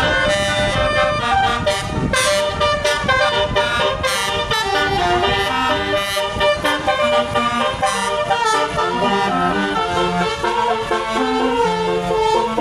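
Indonesian bus "basuri" musical horn playing a melody in stepped notes, over the low rumble of the bus running.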